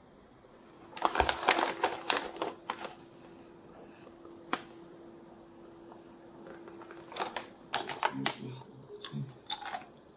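Plastic potato chip bag crinkling and crackling as it is handled and opened, in bursts about a second in and again near the end, with crunching of ridged potato chips at the end.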